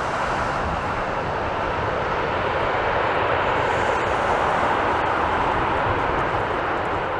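Jet airliner passing close, its engines giving a steady rushing roar that swells slightly midway and then begins to ease.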